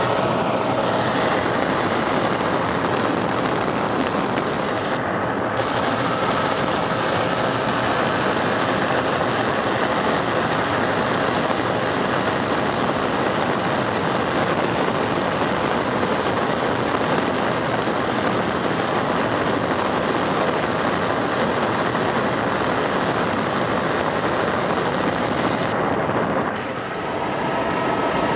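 Helicopter in flight heard from inside the cabin: a loud, steady rotor and engine din with a few faint steady whine tones, dipping briefly near the end.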